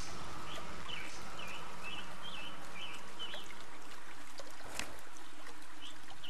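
Steady outdoor background hiss with a bird chirping repeatedly, about eight short high chirps in quick succession over the first few seconds.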